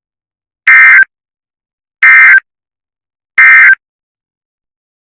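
Three short, loud bursts of EAS digital data tones (SAME), about a second apart: the end-of-message code that closes an emergency alert.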